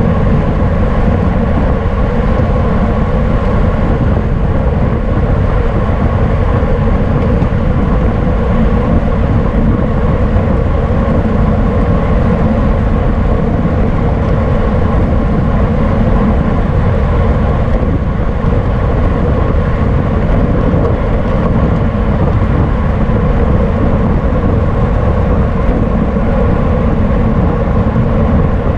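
Wind rushing over the microphone of a camera on a bicycle racing at speed, a loud, steady rumble with a faint steady hum beneath it.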